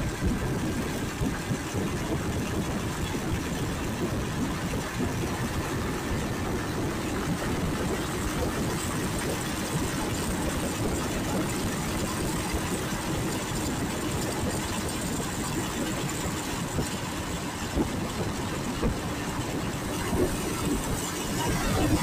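Motorcycle engine running steadily while riding at cruising speed, with wind rushing over the microphone.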